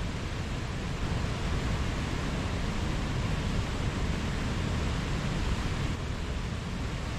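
Mountain stream rushing over rocks: a steady, even wash of flowing water with no breaks.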